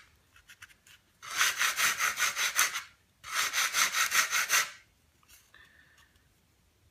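Sandpaper on a sanding block rubbed rapidly back and forth over a model glider wing's raised leading edge to take it down. It comes in two short runs of quick, even strokes, about six a second, with faint handling clicks in the pauses between them.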